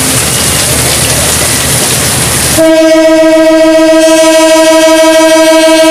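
Heavy rain and a passing passenger train's rolling noise, then about two and a half seconds in a diesel locomotive's horn sounds one long, steady, loud note that is still holding at the end.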